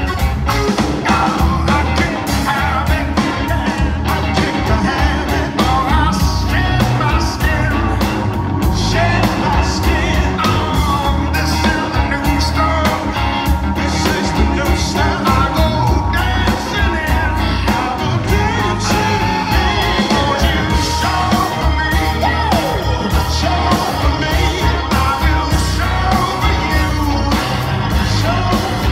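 Live rock band playing through a concert PA, with a male lead singer over electric bass and drums keeping a steady beat.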